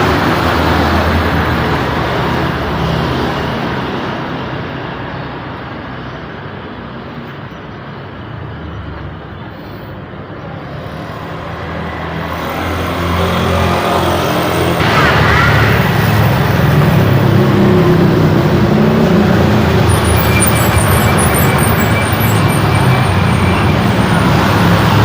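Busy road traffic, with buses, trucks and motorbikes passing. The engine noise eases off about a third of the way in, then builds again to a heavy, steady engine drone for the second half.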